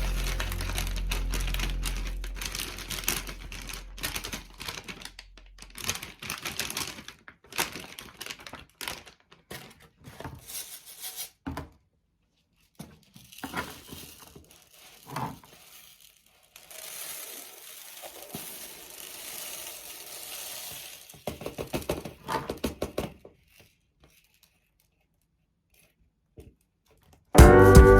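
Background music fading out, then close handling sounds: crinkling packaging, light knocks and clicks, with a steady hiss for a few seconds midway. Music starts again near the end.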